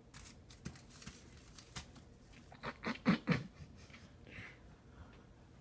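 Cat pawing and biting at a tampon and its plastic wrapper on carpet: faint scratchy rustles and clicks, with a few louder soft knocks about halfway through.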